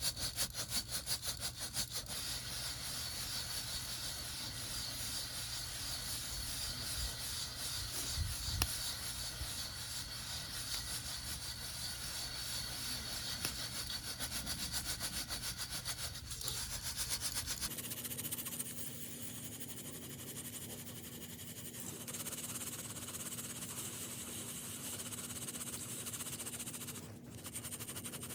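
Green coffee beans rattling inside a Uniflame campfire roaster, a wire-mesh drum, shaken back and forth in an even rhythm during roasting. About two-thirds of the way through, the sound changes abruptly to a steadier hiss with a low hum.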